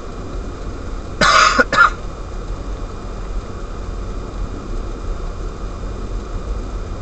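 A person coughing twice about a second in, a longer cough then a short one, over the steady low rumble and hiss of the car driving on the snowy road.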